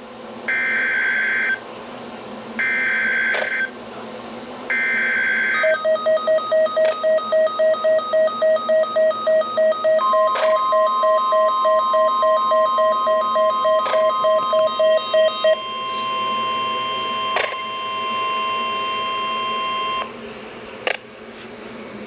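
Emergency Alert System signal on a weather-alert radio: three short warbling data screeches of the digital alert header, then the receiver's rapid, even alarm beeping, and the steady single-pitch warning alarm tone from about ten seconds in, which stops near the end. A few sharp clicks fall in between.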